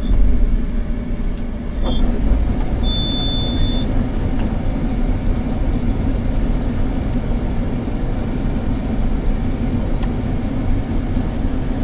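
Diesel engine of a farm harvest machine running steadily, heard from inside its cab. About three seconds in, a single high electronic beep lasts about a second.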